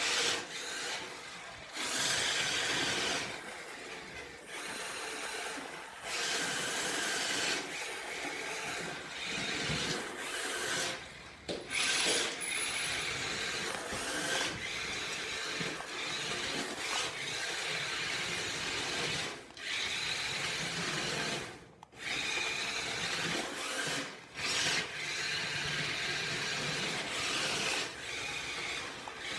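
Toy RC car's small electric motor and gears whirring while its tape-wrapped tires spin and scrape across the floor with no grip, in bursts of a few seconds broken by short pauses as the throttle is released.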